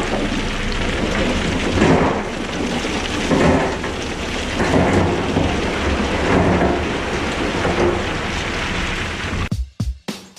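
Loud, steady rumbling noise with a low hum beneath it, swelling every second or two. About nine and a half seconds in it cuts off abruptly, and music with a drum beat starts.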